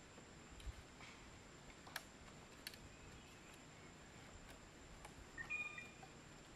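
Near silence, with a few faint sharp clicks and a short high chirp about five and a half seconds in.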